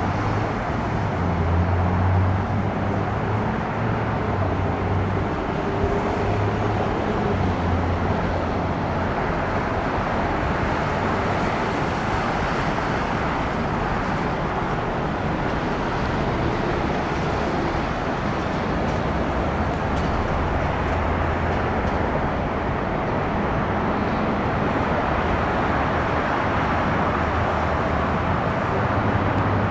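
Steady outdoor engine noise, a continuous rushing hum. A low drone comes and goes during the first ten seconds or so.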